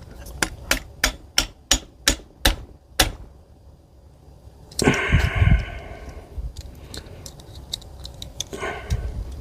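An aftermarket cocking handle being tapped onto an air rifle to seat it: about ten sharp taps, roughly three a second, over the first three seconds. A louder scuffing and knocking of the parts being handled follows about five seconds in, with a shorter one near the end.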